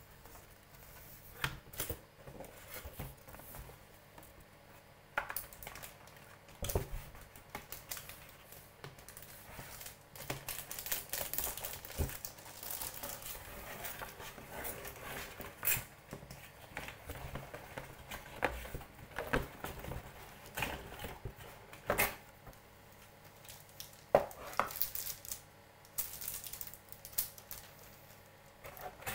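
Unpacking a keyboard: plastic wrap crinkling and rustling, with cardboard packaging being handled. Scattered sharp knocks of the keyboard and box against the table, the loudest two about two-thirds of the way through.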